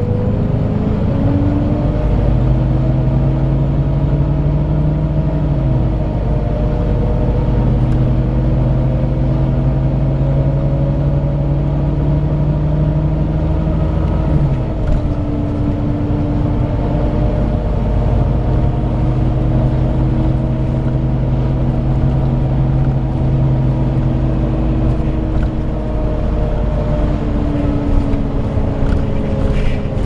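Volvo B9TL double-decker bus running on the move, heard from inside the saloon. Its six-cylinder diesel engine rumbles beneath steady whining tones, the vacuum-cleaner-like 'hoover' whine, which step down in pitch a few times and drop out briefly near the middle as the bus changes speed.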